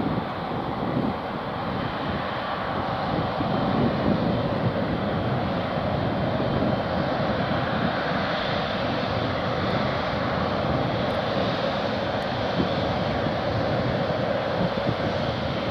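Emirates Boeing 777 twin jet engines running at low taxi power as the airliner rolls slowly along the runway: a steady jet whine and rumble that holds level throughout.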